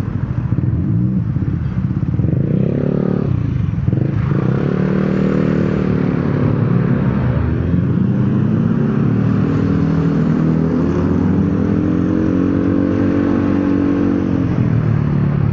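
Motorcycle engine pulling away from a stop. The revs climb about two seconds in, drop briefly, then climb again and hold steady while riding, easing off near the end.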